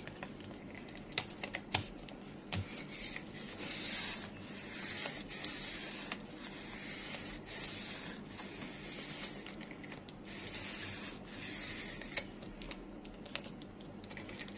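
Fiskars portable rotary paper trimmer cutting through thick chipboard, its blade carriage pressed down and rolled back and forth along the rail: a series of rasping scrapes, each about a second long. Sharp clicks and knocks come in the first few seconds as the sheet and carriage are handled.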